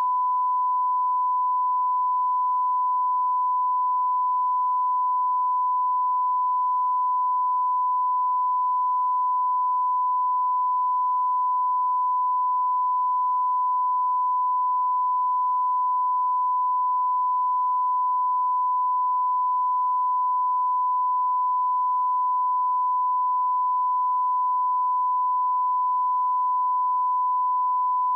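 Broadcast line-up tone: one pure, steady beep held at a single pitch and level without a break, the reference tone sent on a press feed before the event starts.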